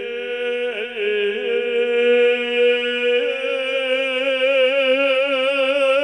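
A singer holding one long sung note with a steady vibrato in devotional folk singing. The note wavers briefly about a second in, then steps up in pitch about three seconds in and is held.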